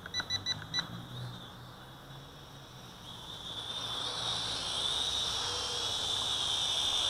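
Four quick electronic beeps, then the high whine of a mini quadcopter's motors and propellers. The whine wavers in pitch and grows louder as the drone flies in close.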